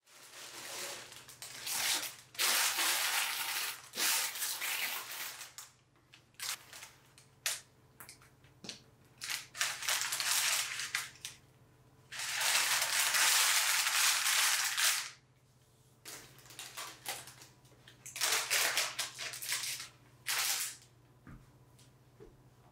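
Crisp crust of a freshly baked no-knead loaf crunching and crackling as a bread knife saws through it, in several long crunching strokes with sharp crackles between them, the longest about twelve seconds in.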